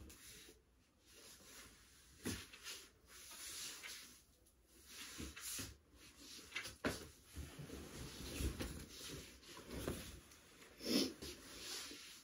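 Faint, scattered rustles and soft handling noises from clothing being moved and adjusted, with stretches of quiet room tone between them.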